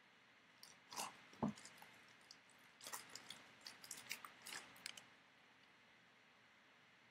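Football trading-card pack wrapper being torn open and crinkled by hand: a run of small crackles and rustles, with one dull thump about a second and a half in. The crackling stops about five seconds in.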